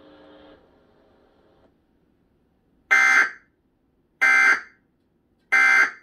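Emergency Alert System digital data tones from a TV speaker: three identical short, buzzy bursts about half a second long and just over a second apart, the end-of-message code that closes the alert.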